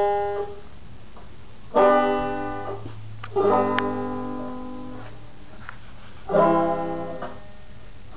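Banjo strummed in single chords, three times, each struck sharply and left to ring out and fade.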